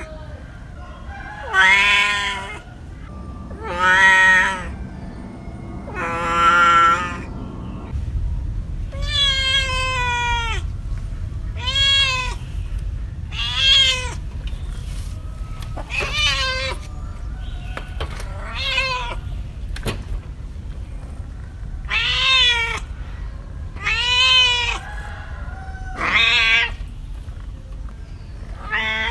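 A domestic cat meowing over and over, about one loud meow every two seconds, many of them falling in pitch at the end. A low steady rumble runs underneath from about a quarter of the way in.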